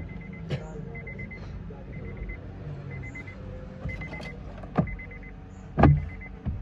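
Hard plastic glove box knocking and clicking against the dashboard as it is fitted back into its opening. There are several sharp knocks, and the loudest comes near the end. Under them a faint electronic beep sounds in quick pips about once a second.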